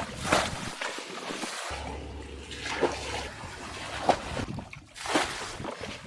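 Water being scooped out of a rock pool by hand-held container and thrown aside: about four splashes, one every second or so, over trickling water.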